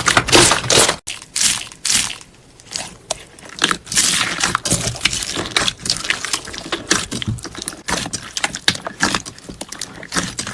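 Slime being squeezed and pressed by hand: dense, irregular sticky crackles and pops, with a brief break about a second in.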